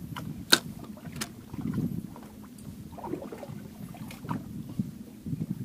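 Uneven low rumble of water and wind around a small fishing boat, broken by a few sharp knocks, the loudest about half a second in.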